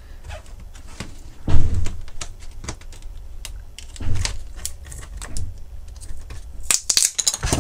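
A thin metal tool prying a freshly milled copper-clad PCB off the tape that holds it to an acrylic sheet: scattered clicks, taps and scrapes, with a heavier bump about one and a half seconds in and a quick run of clicks near the end.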